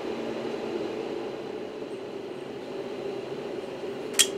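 Steady whir of an Agilent E4406A vector signal analyzer's cooling fan running, with a single sharp click near the end.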